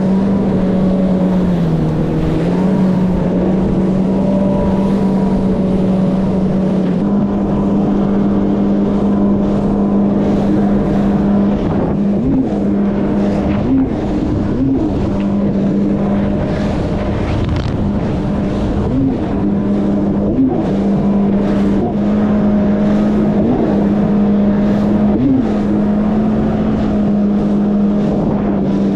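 Yamaha WaveRunner jet ski engine running at a steady cruising speed while under way, with short rises in pitch every second or two from about halfway through.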